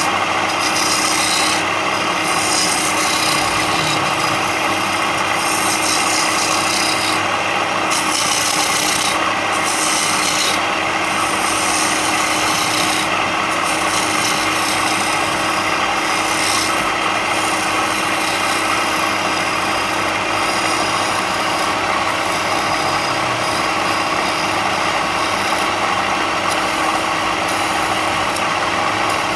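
A power tool abrading wood: a continuous rough rubbing over a steady motor hum, the scratchy top swelling and easing every second or two as the tool is worked across the piece.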